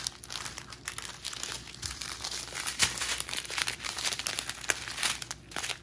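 Small zip-top plastic bags of diamond painting drills crinkling irregularly as they are handled and sorted, stopping just before the end.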